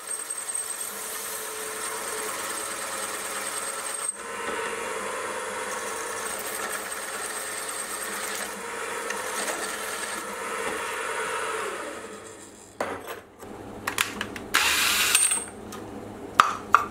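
Sieg X2.7L mini mill running a boring head, the boring bar cutting an aluminium plate to enlarge a hole: a steady cutting hiss with a thin high whine for the first four seconds. About twelve seconds in the cut winds down, followed by sharp clicks and a brief rubbing as chips are brushed off the plate.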